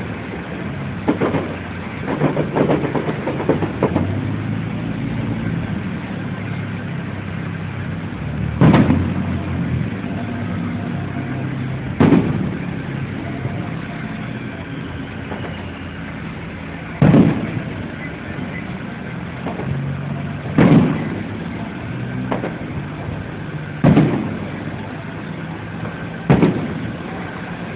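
Aerial fireworks shells bursting: a scatter of smaller pops and crackles in the first few seconds, then six loud booms a few seconds apart, each trailing off in an echo. A steady low hum runs underneath.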